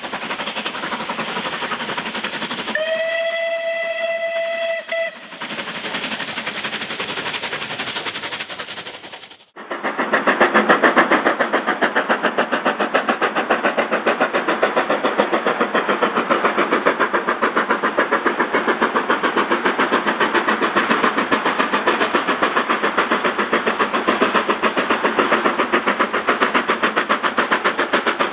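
A steam locomotive's whistle sounds once for about two seconds, a few seconds in, over a steady rushing noise. Then, after a sudden break near ten seconds in, a steam locomotive hauling a passenger train comes on loud, with a rapid, even beat of exhaust chuffs.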